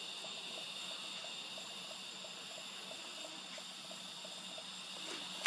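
Faint, steady high-pitched insect chorus with a soft hiss, nothing standing out over it.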